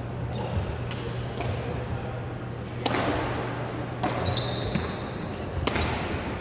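Badminton rackets striking a shuttlecock during a rally: sharp hits a second or two apart, the loudest about three seconds in, echoing in a large hall. A steady low hum runs underneath and stops a little over halfway through.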